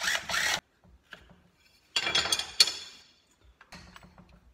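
A cordless driver briefly spins out a head-cover bolt, then metal parts clink and rattle against the steel bench, loudest about two seconds in, as the aluminium head cover and its bolts are handled.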